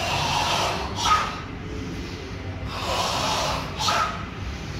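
A group of karate students breathing forcefully in unison as part of a kata: two long hissing breaths, each about a second long and each closed by a short sharp burst.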